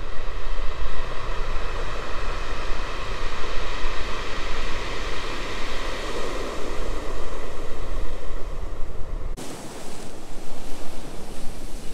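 Large ocean waves breaking and washing up a stony shore, a steady rush of surf, with wind rumbling on the microphone. The rush cuts off abruptly about nine seconds in, giving way to a different, quieter outdoor ambience.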